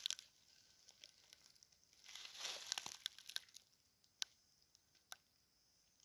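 Faint rustling and crackling of dry leaf litter, louder for a second or so about two seconds in, followed by two sharp clicks a little under a second apart.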